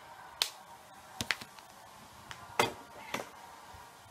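A handful of short, sharp clicks and taps, about five in all, the loudest about two and a half seconds in, over a faint steady background hum.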